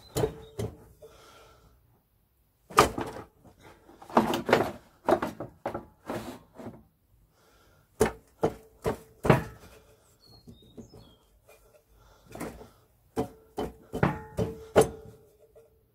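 Rusty transmission brake drum on a Land Rover Series gearbox being rocked and tugged by hand, giving irregular metallic clunks and knocks in clusters, each ringing briefly. The drum is stuck on the output shaft, held by crud on the end of the shaft.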